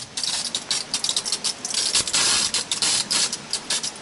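Irregular rustling and crackling scrapes at an uneven pace, bright and noisy, with no steady tone.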